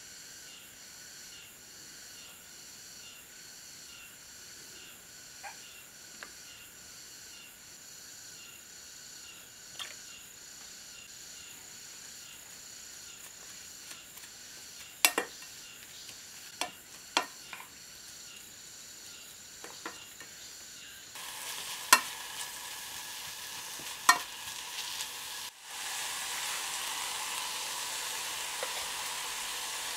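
Perilla leaves, chives and garlic stir-frying in a small stainless steel saucepan, with a cooking spoon clicking sharply against the pan several times. The sizzling grows louder over the last third.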